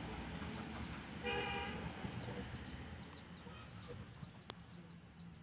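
A brief, steady horn-like toot about a second in, faint over quiet background noise, with a single sharp click later.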